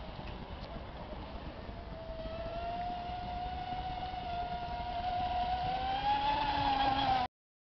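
Radio-controlled speedboat's motor whining at speed, a steady high tone that rises slightly in pitch and grows louder, then cuts off suddenly near the end.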